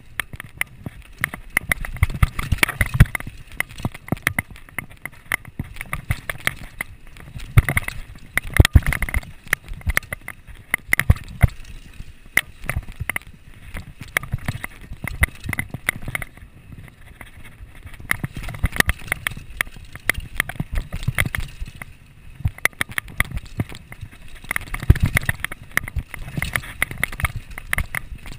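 Downhill mountain bike clattering over a rough dirt trail at speed: a dense run of irregular knocks and rattles, with louder clusters as it hits bumps, over a steady rush of tyres on dirt.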